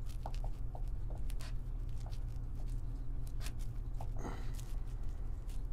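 Pencil scratching on paper in short, scattered strokes over a steady low hum.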